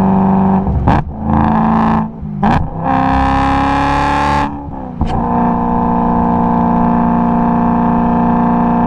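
BMW E92 M3's V8 engine, breathing through an Eisenmann Race exhaust with a Macht Schnell X-pipe, pulling hard through the gears. Three quick upshifts, each with a brief dip and a sharp crack, come about 1, 2.5 and 5 seconds in. After the last shift it runs at steady revs.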